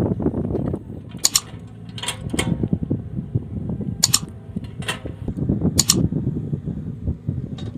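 Mini excavator's diesel engine running steadily, with about six short, sharp metallic clinks from the working machine at uneven intervals.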